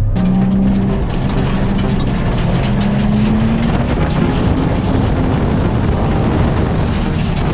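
Drift car's engine running hard at high revs, over a dense steady rush of tyre and wind noise. The engine note climbs a little about three seconds in, then settles.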